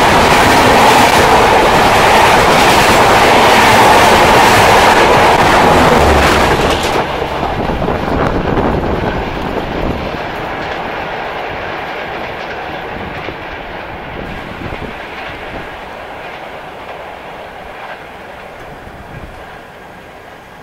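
A double-decker express's coaches rushing past close alongside on the next track, wheels clattering over the rail joints. About seven seconds in the last coach clears and the noise drops suddenly, leaving a fainter running sound that fades steadily.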